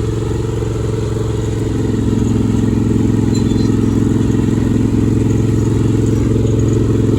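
ATV engine running at a steady speed while riding, getting a little louder about two seconds in.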